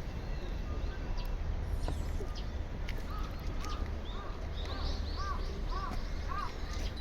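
A bird calls in a quick series of about seven short arched notes, starting about three seconds in, over a steady low rumble with scattered faint chirps.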